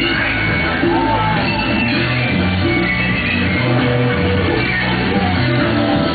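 Loud music with a bass line of changing low notes, playing without a break.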